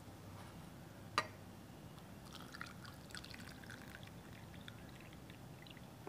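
Hot milk being poured from a mug into a cup, a faint trickle starting about two seconds in. A single light click comes about a second in.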